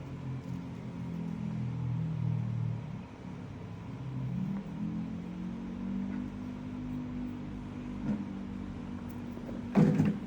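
Small battery-powered air pump of a toy airbrush kit running with a steady hum, its pitch shifting a couple of times as it works. A sharp clatter comes near the end.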